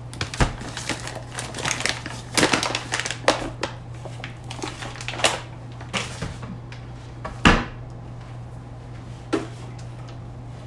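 Paper flour bag crinkling and flour pouring into a glass mixing bowl, with a quick run of clicks and rustles in the first few seconds. A loud knock about seven and a half seconds in and a smaller one near nine seconds as things are set down on the counter, over a steady low hum.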